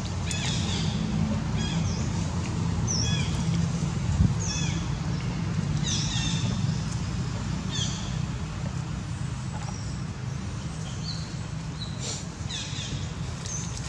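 Young long-tailed macaque giving short, high-pitched squeaking calls that fall in pitch, repeated every second or two, over a steady low rumble.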